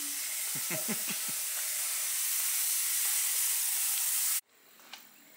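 Ultrasonic parts cleaner running: a steady, high hiss that cuts off suddenly near the end.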